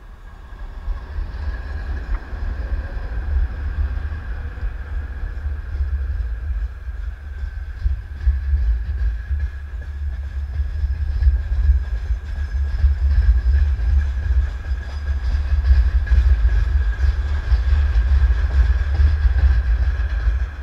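Twin-section M62-series diesel locomotive passing at the head of a train, its low rumble swelling over the first couple of seconds and then running on steadily as the train rolls by, with a constant high whine on top.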